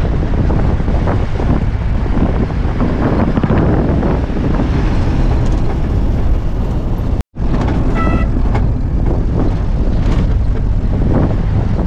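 Steady engine and road noise of a vehicle heard from inside its cab while driving along a rough hill road, cut off for an instant about seven seconds in.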